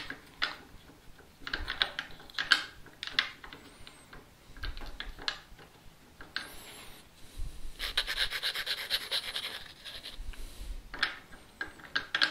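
Hands working an aluminium bar clamp's plastic jaw and a super glue tube, making a series of light clicks and taps. About halfway through comes a few seconds of rough rubbing, then a few more clicks near the end.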